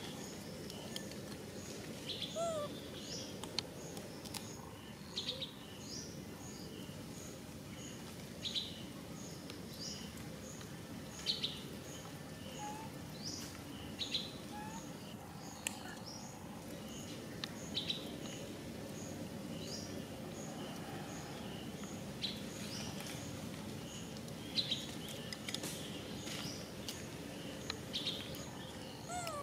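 Birds chirping in tropical woodland: short sharp high calls every few seconds over a steady high pip that repeats about twice a second, with a constant low background hum.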